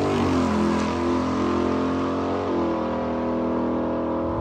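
Drag car engine running at low, steady revs after the revs fall away at the start, with a slight dip in pitch about two and a half seconds in.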